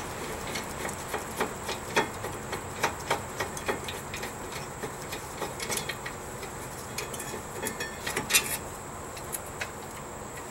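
Socket ratchet clicking in short irregular runs as the 14 mm rear caliper bracket bolts are turned out, with light clinks of metal on metal. There is a sharper clank about two seconds before the end.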